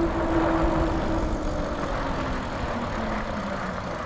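Vanpowers Manidae fat-tire electric bike ridden on asphalt at about 17 mph: a steady rushing of tyres and air, with a hum that slowly drops in pitch.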